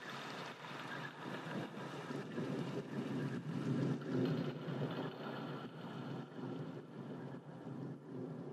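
Jet airliner cabin noise in flight: a steady rushing of engines and airflow that swells slightly about halfway through and then eases.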